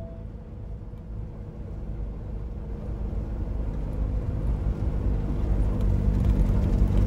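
Cummins X15 diesel engine of a Peterbilt 389 truck heard from inside the cab: a steady low drone that grows gradually louder.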